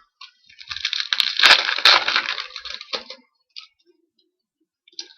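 A trading card pack's wrapper crinkling and tearing open, with a few sharp snaps in the middle, for about three seconds. Only faint ticks follow.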